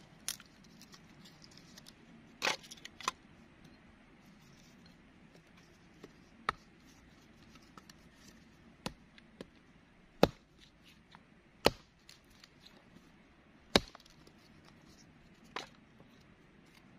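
Small hatchet splitting firewood into kindling: about ten sharp chops, spaced irregularly a second or more apart.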